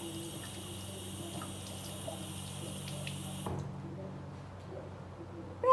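Water running steadily, then shut off abruptly about three and a half seconds in, over a steady low hum.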